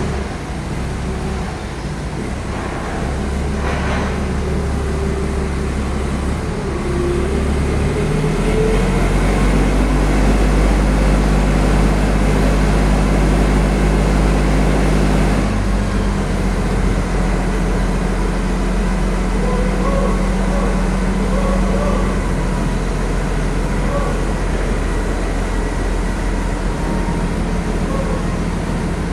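Heavy truck engine running under load with a steady low drone; its pitch steps to a new level about eight seconds in and again about fifteen seconds in, as with gear changes.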